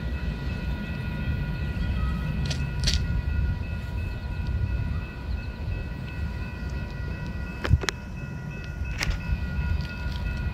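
Canadian Pacific freight train rolling away, a steady low rumble of its wagons with a few sharp clicks, under a steady high ringing tone.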